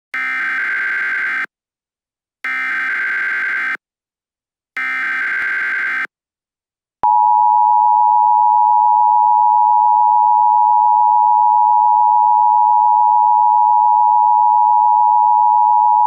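Emergency Alert System signal: three short bursts of SAME header data tones about a second apart, then, about seven seconds in, the steady two-tone EAS attention signal (853 and 960 Hz sounded together) starts. This sequence marks the start of an emergency alert broadcast.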